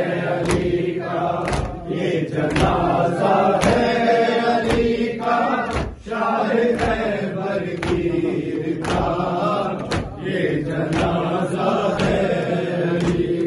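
A group of men chanting an Urdu noha (Shia lament) together, led over a microphone. The congregation beats their chests in time (matam), a sharp slap about once a second.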